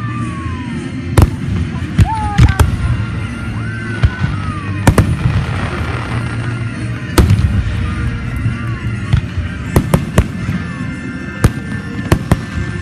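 Fireworks going off: a dozen or more sharp bangs at irregular intervals, with several whistles falling in pitch and a spell of crackling about midway.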